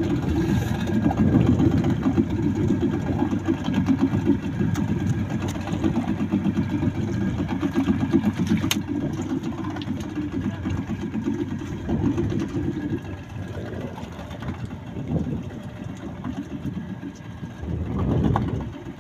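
Small outboard motor on a wooden fishing boat idling with a fast, even chatter, growing quieter about two-thirds of the way through.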